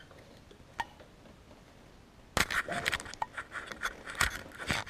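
A quick clatter of small clicks, knocks and rattles starting about halfway in, with a few louder knocks, after one lone click before it.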